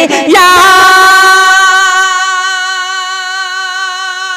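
Male naat reciter singing unaccompanied through a microphone: a quick ornamented run at the start, then one long held note.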